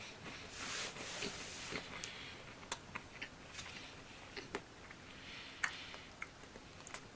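Faint, scattered crunches and clicks of a person chewing a crisp KitKat Cookies and Cream wafer, with short breathy noise between them.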